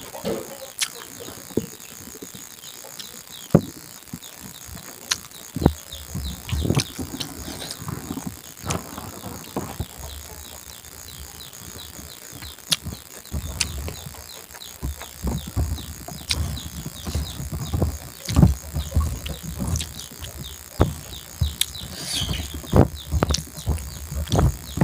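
Close-up eating sounds: chewing and mouth noises, with scattered sharp clicks, over a steady background of insects chirping.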